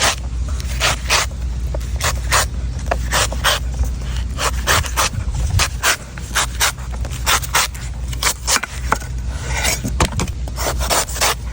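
Knife cutting a coconut: quick, repeated sharp strokes at about two to three a second, uneven in spacing, over a steady low rumble.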